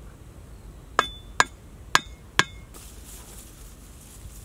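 Four sharp knocks, in two quick pairs, of a hand tool tapping thin wooden stakes down into the mud of a clay fish trap, each with a short clinking ring.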